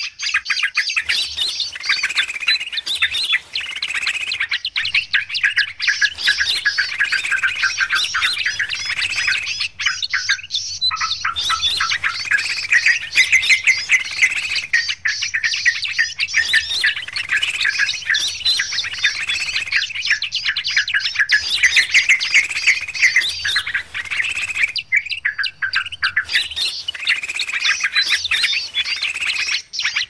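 Bird-trapping lure recording of a noisy crowd of small forest birds chirping and chattering at once, a dense, busy twittering broken by short lulls every few seconds.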